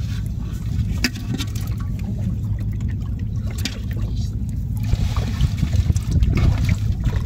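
Live freshwater prawns and small fish stirring and flicking in shallow muddy water in a bucket, with scattered small splashes and water ticks, a little busier near the end as a hand reaches in among them. A steady low rumble runs underneath.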